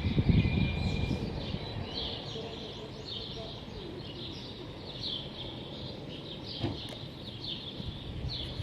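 Many small birds chirping and twittering over and over, over a low rumble of city background noise that is louder in the first second and then settles to a steady hum.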